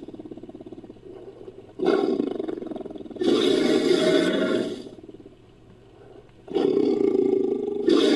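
Fictional creature sound effect for a great white shark, built from tiger roars: a growling roar begins about two seconds in and swells louder, fades, and after a short lull a second roar starts near the end.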